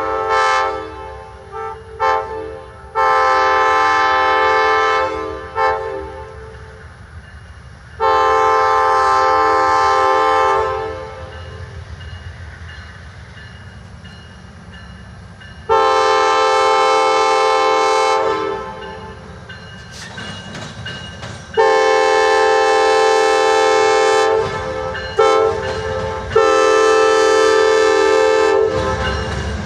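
Amtrak GE P42DC diesel locomotive's air horn sounding a series of long blasts with a few short ones; from about halfway through it sounds long, long, short, long, the standard grade-crossing warning. Near the end, the rumble of the locomotives and their wheels on the rails grows loud as the train passes close.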